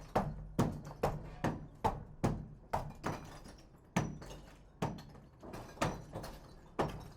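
Hammer striking repeatedly, about two blows a second with a couple of short pauses, each blow a sharp knock with a brief ring.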